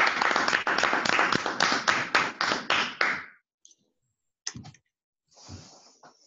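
Applause from a small group, many quick claps lasting about three seconds and then stopping suddenly. A few scattered clicks and a short soft rustle follow.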